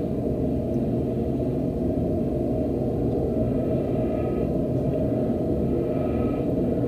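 Crow caws played backwards from a cassette tape: two faint reversed caws, about four and six seconds in, over a steady low rumble of tape noise that is louder than the calls.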